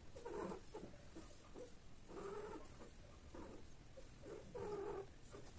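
Domestic cat calling during mating: about four short, low-pitched vocal calls, roughly one a second.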